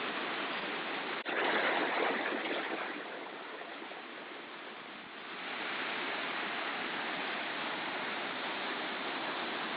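Steady rushing of the Los Alerces waterfall and the Manso River. There is a brief cut just over a second in, then a louder surge for a second or two. The sound dips a little before settling back to an even rush.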